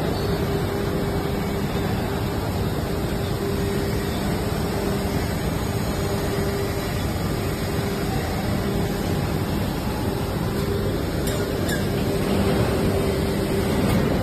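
Injection moulding machine running: a steady machine hum with a low tone, and a few light clicks about three quarters of the way through.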